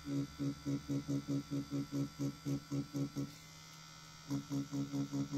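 Pen-style rotary tattoo machine running while its needle works ink into synthetic practice skin: a low electric buzz that swells and dips in quick, even pulses about six a second. It drops back to a plain hum for about a second past the middle, then the pulsing starts again.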